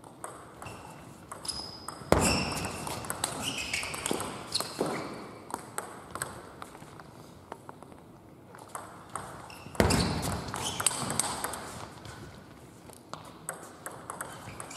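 Table tennis rallies: plastic balls clicking quickly and unevenly off rubber bats and table tops, from more than one table. Two louder hits, about two seconds in and near ten seconds in, stand out from the clicks.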